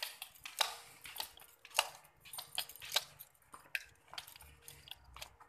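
Footsteps on a concrete floor: a string of sharp taps, about one every half second to second, over a faint low hum.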